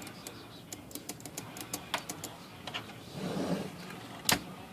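Light, irregular mechanical clicks from an Adler Satellite 2001 electric typewriter being worked during a ribbon-feed check. A brief rustle comes about three seconds in, and one sharp, louder clack near the end.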